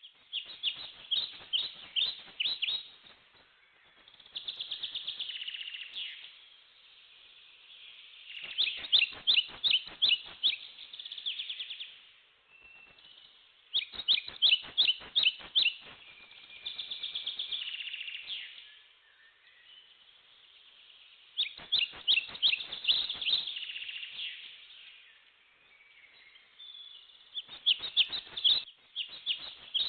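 Songbirds singing: bursts of quick, sharp notes lasting two to four seconds, repeated about every six seconds, with softer trilling phrases in between.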